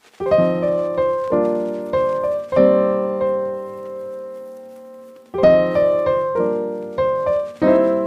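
Background piano music: chords struck and left to ring out, with a long fading chord midway and new notes coming in again at about five seconds.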